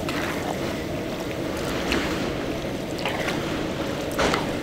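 Food sizzling in a large steaming wok as a metal ladle stirs sticky rice and diced filling, scraping the pan in a few separate strokes.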